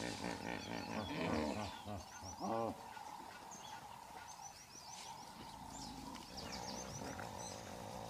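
Hippopotamuses calling with deep, pulsing honks and grunts in the first few seconds, the loudest a single honk about two and a half seconds in, over high bird chirps throughout.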